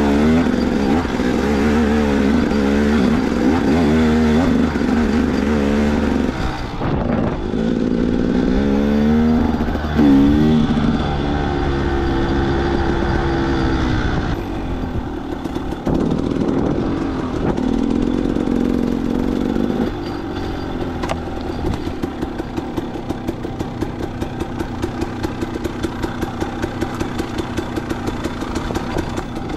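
KTM 300 EXC two-stroke dirt bike engine, heard from the rider's own bike, revving up and down over and over as the throttle is worked on a rough rocky trail. For the last ten seconds or so it drops to a lower, steadier note with an even pulsing beat.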